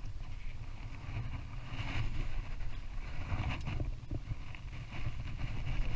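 Wind rumbling on the microphone and water slapping against a small skiff's hull, with a few light knocks and scrapes of handling in the boat.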